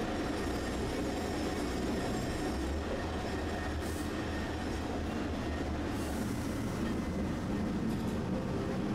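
Tosaden streetcar running on its rails, heard from inside the car: a steady low rumble of wheels and running gear.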